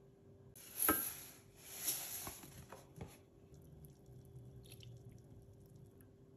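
Milk poured into the stainless steel bowl of a Thermomix onto egg yolks, splashing loudest about a second in and again near two seconds, then running on more quietly. A faint steady hum sits underneath.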